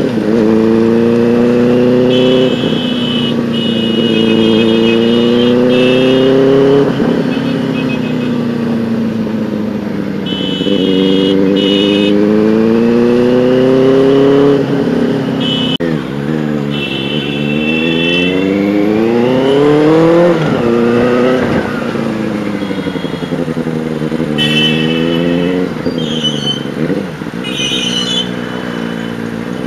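Benelli TNT 600i inline-four with a loud aftermarket Ixil exhaust, heard from the saddle while riding. The engine note climbs and falls several times as the bike accelerates through the gears and eases off. About two-thirds of the way through it makes one sharp rev up and drop.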